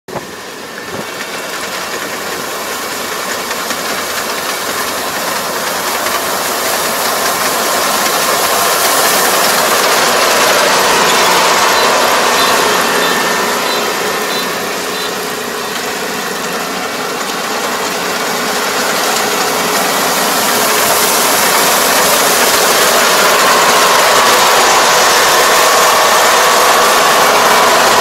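Kubota ER470 four-row combine harvester running as it cuts lodged, typhoon-flattened rice: a steady mechanical drone of engine and harvesting machinery. It grows louder as the machine draws near, dips briefly midway, then swells again as it comes alongside.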